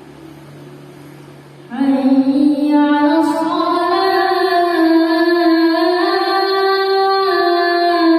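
A solo voice chanting a phrase of the adzan, the Islamic call to prayer, in long held, ornamented notes. It enters loudly about two seconds in, after a quieter moment with a faint low hum.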